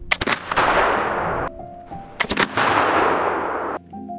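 Two shots from a replica early 19th-century flintlock rifle, about two seconds apart, each a quick cluster of sharp cracks followed by a long echoing decay, over soft background music.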